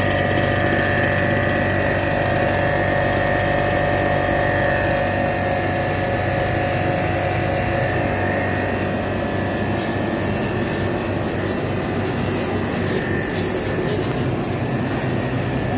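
Rico Italy RI-S6 portable electric pressure washer running steadily, its motor and pump giving an even whine and hum.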